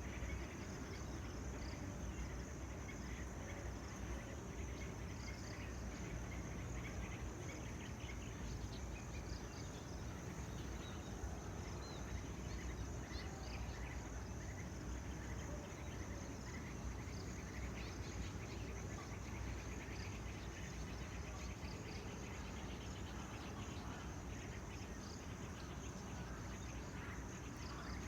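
Tropical outdoor ambience: a steady high-pitched insect drone with scattered short bird chirps over a constant low rumble.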